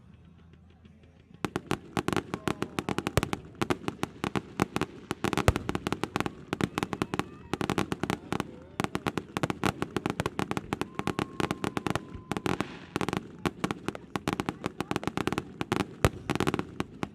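Fireworks going off in a rapid, dense barrage of sharp cracks and pops. It starts about a second and a half in and keeps up without a break.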